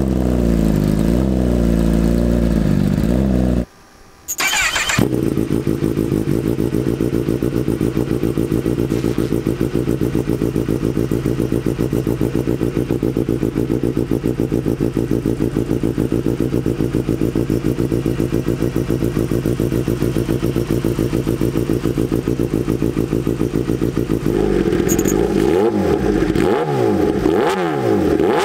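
Kawasaki ZX-10R sportbike's inline-four engine running through an aftermarket exhaust: revving at first, then a sudden break, then a long steady idle. Near the end come repeated quick throttle blips, the pitch rising and falling with each one.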